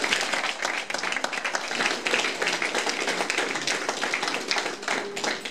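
Audience applauding, many people clapping their hands together.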